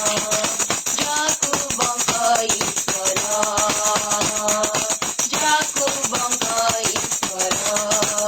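Worship song: a woman's singing voice holding long notes over a fast, steady tambourine beat.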